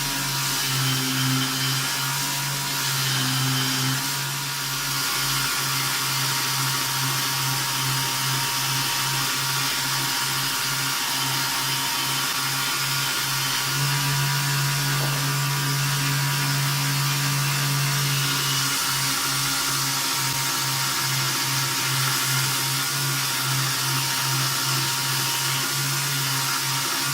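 Homemade belt grinder running steadily: a motor hum under the hiss of the abrasive belt.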